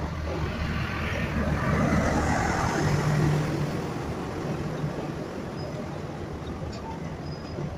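Passenger coaches of a Bangladesh Railway intercity train rolling slowly past: a steady rumble of wheels on the rails that swells louder a couple of seconds in, then eases off to a steady run.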